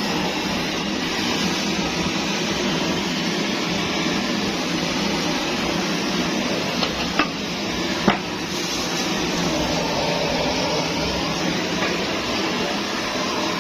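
Kerosene pressure stove (primus) burning with a steady hiss. Two light clicks come about a second apart, some seven seconds in.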